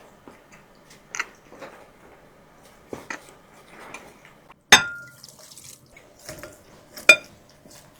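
Close-up eating sounds: small wet mouth and food noises, with two sharp clinks of a utensil against a dish. The louder clink, a little past halfway, rings briefly, and the other comes near the end.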